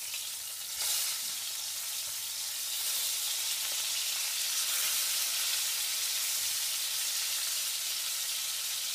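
Flour-coated chicken pieces sizzling in shallow oil in a frying pan. The sizzle gets louder about a second in and then holds steady.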